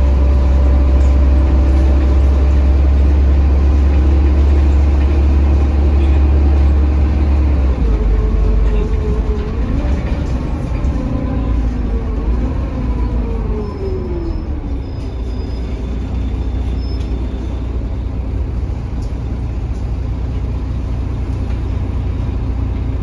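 Mercedes-Benz OH1830LE bus's OM926 six-cylinder diesel and driveline heard from the passenger cabin: a heavy steady rumble under way, which eases about eight seconds in, followed by a whine that rises and then falls in pitch as the bus slows, then steady running.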